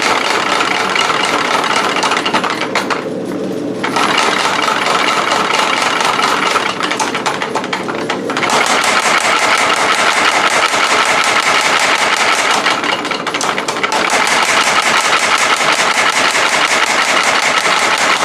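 25-pound Little Giant mechanical power hammer striking hot knife steel in rapid repeated blows, easing off briefly a few times, as the blade's width is forged down.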